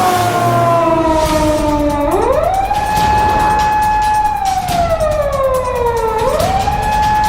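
Japanese police car siren wailing in long cycles. It rises quickly about two seconds in, holds high, slides slowly down, and rises again near the end, over a steady low noise.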